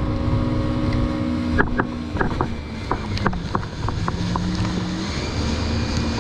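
Yamaha WaveRunner jet ski engine running at speed. Its pitch drops about two seconds in and climbs again about a second before the end, with a string of sharp water slaps and splashes in between over a low wind rumble.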